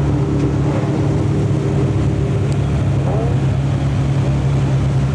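Ferrari 458 Italia's 4.5-litre V8 idling with a steady, even hum.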